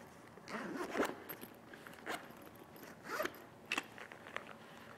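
Zipper of a fabric carrying bag being pulled open around the lid in a few short strokes, with a sharp click about three-quarters of the way through.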